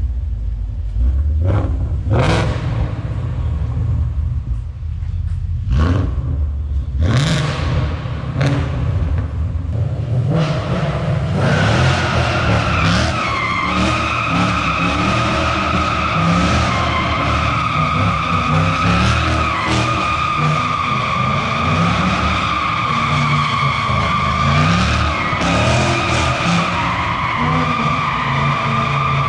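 A car engine revving hard with tyres screeching in short bursts. From about twelve seconds in, one long, steady tyre squeal runs over the engine as the car drifts in a continuous slide.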